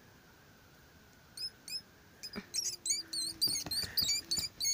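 A rat squeaking, high and sharp, as it is disturbed among cloth: two squeaks a little over a second in, then from about halfway a fast run of squeaks, about five a second.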